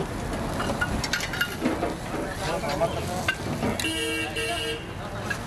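Busy street noise with scattered voices, cut by a vehicle horn sounding three quick beeps about four seconds in.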